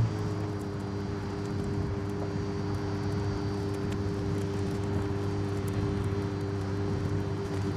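Apollo Intensa Emozione hypercar's naturally aspirated V12 idling steadily with an even low hum, just after a louder burst stops right at the start.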